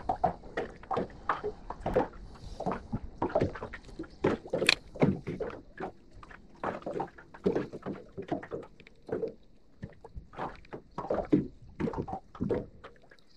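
Small waves lapping and slapping irregularly against the side of a small fishing boat, a few soft knocks a second.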